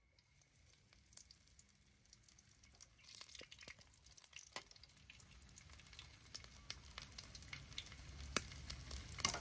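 Food frying in hot oil: a hissing sizzle crowded with sharp pops and crackles, starting suddenly and growing steadily louder.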